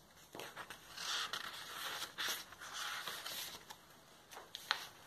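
Paperback book being handled, its paper pages rustling as they are turned for a few seconds, with a sharp tick near the end.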